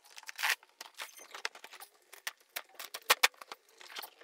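Cardboard box being torn open by its pull strip: a run of short cardboard rips, crackles and clicks, with a longer rip about half a second in.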